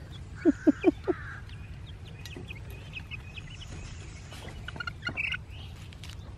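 Young chickens peeping and chirping, with three louder short calls in quick succession about half a second in.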